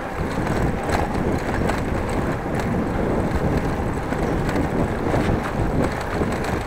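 Steady rushing wind on the microphone of a bicycle-mounted action camera while riding, mixed with the rumble of the bike's tyres rolling over brick paving.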